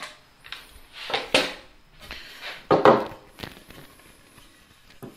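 A 2x4 board being handled on a wooden workbench: a few short knocks and scrapes of wood on wood, the loudest about three seconds in.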